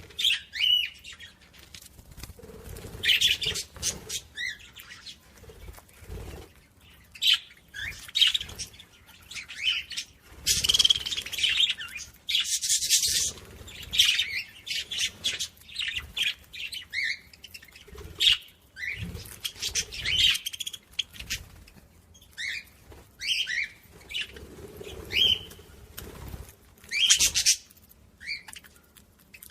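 Small songbirds chirping in short, repeated calls throughout, with brief rustling, fluttery noise bursts in between.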